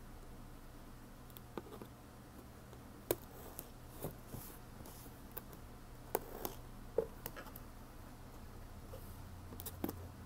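A pointed tool scratching and picking at the round seal sticker on the seam of a cardboard box, cutting it open: scattered light clicks and scrapes, about one every second or two, over a faint steady hum.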